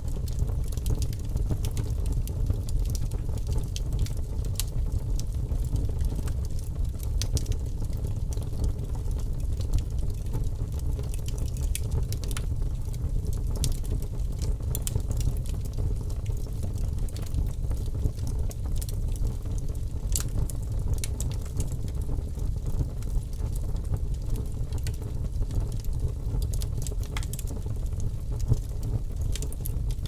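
Split-log bonfire burning: a steady low rush of flames with scattered sharp crackles and pops from the burning wood.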